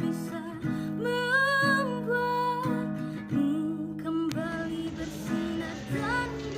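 Background music: a song played on acoustic guitar, with a voice singing the melody.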